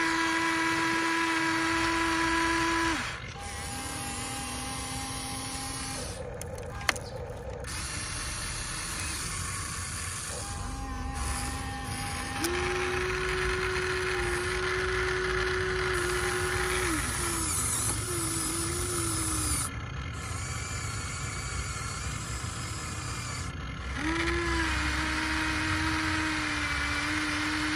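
Electric motors of a Huina RC excavator whining steadily as its boom, arm and bucket move, the pitch stepping up and down each time a different motion starts or stops. One sharp click about seven seconds in.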